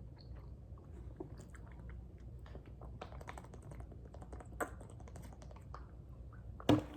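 Close-miked chewing of sweet pork: many small, irregular wet mouth clicks and smacks. A single louder, sharp sound comes near the end.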